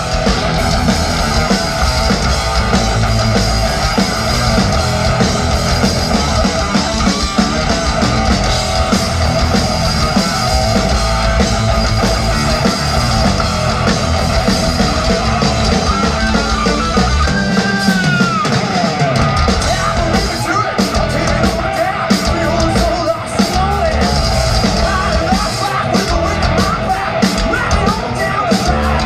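Live rock band playing loud, with drum kit, electric guitar and singing.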